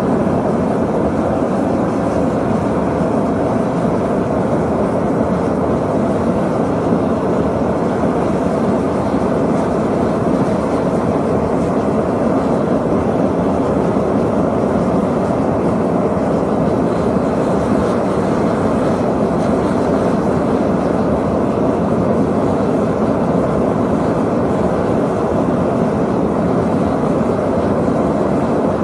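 Forge running with a loud, steady rushing noise while a billet heats toward forge-welding temperature.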